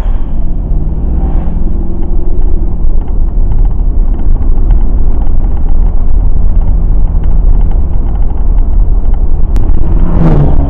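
Mercedes CLK 63 AMG's 6.2-litre V8 running with a steady deep rumble.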